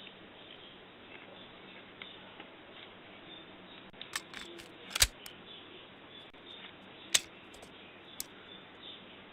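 A scatter of sharp clicks and snaps, a few close together about four seconds in, the loudest a little after, another loud one about seven seconds in and a last one near the end, over a faint steady background.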